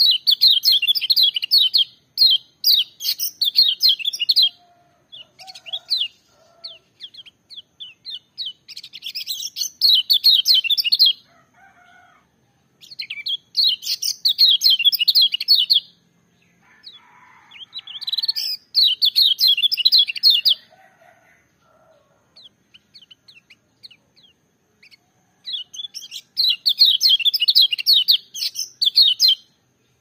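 Kecial kuning (yellow white-eye) singing loud, high, rapid warbling phrases in five bursts of two to four seconds each, with short pauses between them.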